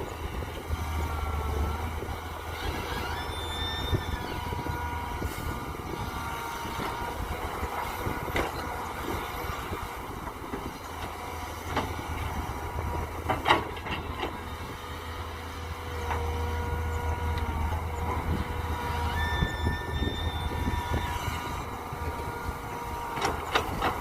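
Mini excavator working: its engine runs steadily, with a low hum that swells in two long stretches, and thin high whining tones come and go above it. A few sharp clanks, the clearest about halfway through and near the end.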